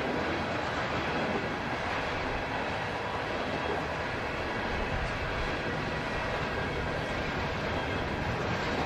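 Norfolk Southern freight train's cars rolling past in a steady rumble and rush, with wind on the microphone.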